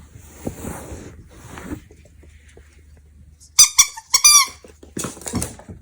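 A ferret playing with a rubber squeaky pig toy: two loud, high squeaks a little past the middle, the first broken into quick pulses and the second falling in pitch.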